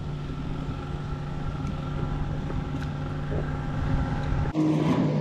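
Steady motor hum made of a low tone and several higher steady tones over a rumble. About four and a half seconds in the rumble drops away abruptly and the hum goes on with an added higher tone.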